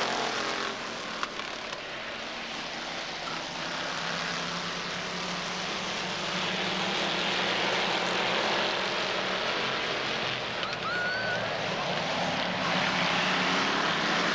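Engines of a pack of stock cars racing around an oval track, a continuous drone that dips in the first few seconds, then grows gradually louder as the field comes around.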